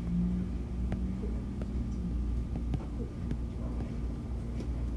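Typing on an iPad's on-screen keyboard: light taps, several a second, over a steady low background hum.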